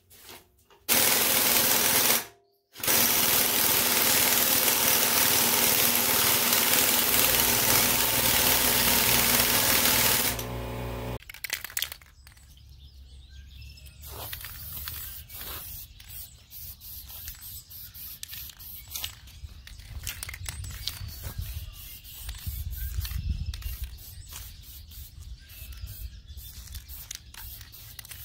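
Pneumatic impact wrench running in two long bursts, with a brief pause after the first, driving the harmonic balancer bolt home onto the crankshaft snout of a 383 big-block Mopar V8. After that, much quieter short hisses of an aerosol spray-paint can.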